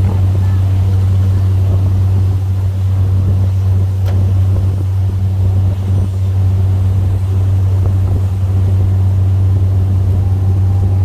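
Boat engine running at a steady speed, a loud, constant low drone.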